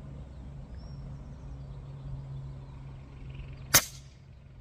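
A single shot from a Gauntlet 30 PCP air rifle firing a slug: one sharp crack near the end, with a brief tail after it. It sounded very weak.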